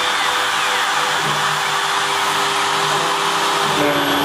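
Kress 1050 router spindle on a CNC router, running at about 16,000 RPM while a 3 mm three-flute high-speed steel end mill cuts a 4 mm aluminium sheet under flood coolant: a steady loud whine and hiss of cutting, its tone dropping slightly near the end.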